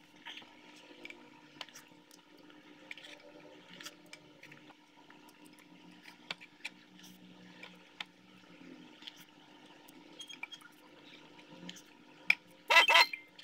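Close-up eating sounds: a plastic spoon clicking and scraping against a ceramic bowl, with chewing and soft wet slurps of noodles, and a short loud slurp near the end.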